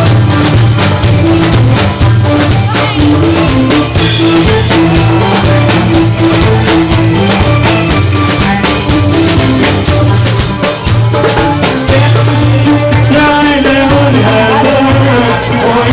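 Music with a steady shaker rhythm over a bass line; a wavering melodic line comes in about twelve seconds in.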